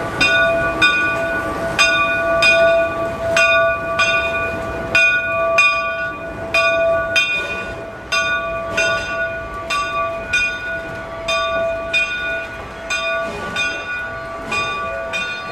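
Steam locomotive bell ringing steadily, struck about every three-quarters of a second. It grows fainter as the engine pulls away, while the passenger cars roll past.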